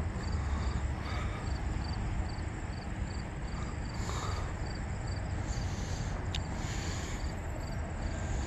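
An insect, a cricket or katydid, chirping steadily about twice a second over a low, steady outdoor rumble.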